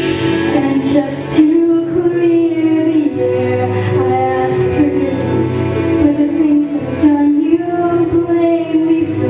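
A female solo voice singing a slow ballad in long, held notes with vibrato, over a steady instrumental accompaniment.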